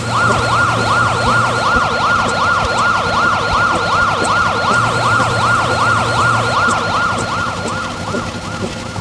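Siren sound effect: a fast yelp siren sweeping up and down about three times a second, starting abruptly and fading out near the end.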